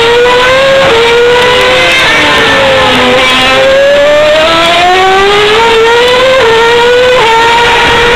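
Formula One cars' 2.4-litre V8 engines at high revs, accelerating out of a corner. Each note climbs and then drops sharply at every upshift, and more than one car is heard at once.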